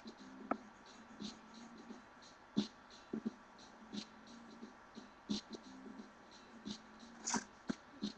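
Irregular small clicks and scratches of a sheet of paper being cut and handled around a pen drawing, over faint background music.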